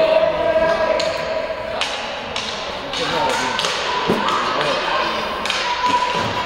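Scattered thuds and taps from play during a match, with voices calling over them.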